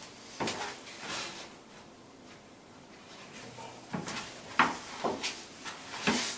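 Scattered wooden knocks and clunks, about six of them, the sharpest about four and a half seconds in: a cedar sauna bench being set and shifted on its wooden supports.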